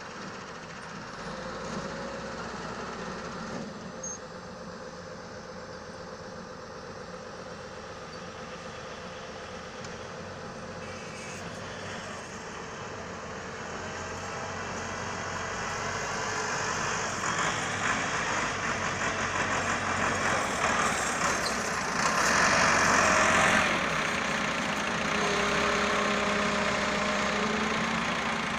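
Doosan 140 excavator's diesel engine running, growing louder from about halfway through and loudest a little before the end, with a few short steady tones near the end.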